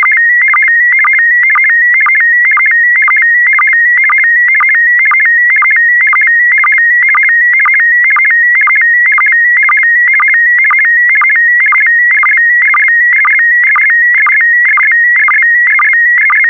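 Slow-scan television (SSTV) signal in PD120 mode: a loud, high warbling tone that shifts rapidly in pitch as it carries the picture data line by line, broken about twice a second by a short lower sync pulse marking each pair of scan lines.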